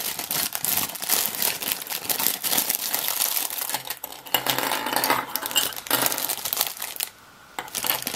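Thin clear plastic bag crinkling loudly as it is handled and opened, with plastic kit parts shifting inside; the crinkling stops briefly near the end.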